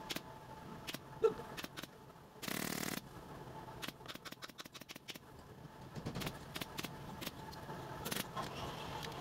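Pneumatic upholstery staple gun firing staples through foam and fabric into a wooden sofa-arm frame: a string of sharp clicks, quickest in a run about four seconds in, with a short hiss of air about two and a half seconds in.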